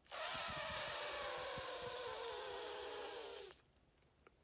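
A prolonged voiceless 'th' (/θ/): a steady breathy hiss of air pushed out over the tongue held between the teeth. It lasts about three and a half seconds and stops sharply.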